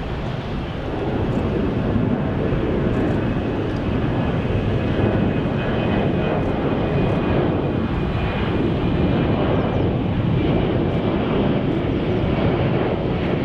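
Jet airliner's engines passing close by, a loud steady rush that builds about a second in and holds, with a faint high whine over it.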